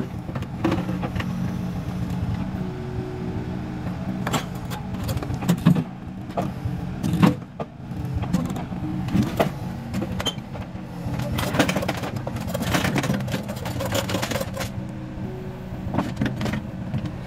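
Compact excavator's diesel engine running steadily under hydraulic load while it hoists itself onto a small wheeled trailer, with repeated sharp metal clanks and knocks from the tracks, blade and bucket. The two loudest knocks come about six and seven seconds in.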